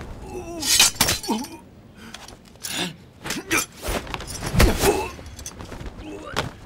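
Staged martial-arts fight sound effects: a string of sharp hits and swishes, with short grunts from the fighters. The heaviest hits come about a second in and just past the middle.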